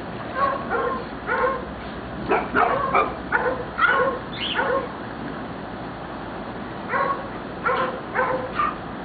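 Small dog barking and yipping in a string of short, high barks, a pause of about two seconds, then a few more barks near the end.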